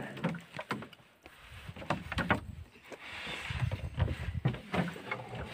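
Eating sounds close to the microphone: chewing with wet mouth clicks and smacks, and fingers scooping rice and salad from a plate, giving a series of short clicks and soft thuds.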